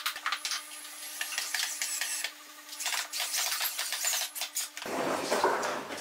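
Wooden pieces of a pine birdhouse handled on a workbench: quick runs of small clicks and knocks of wood against wood, then a longer scraping rub near the end.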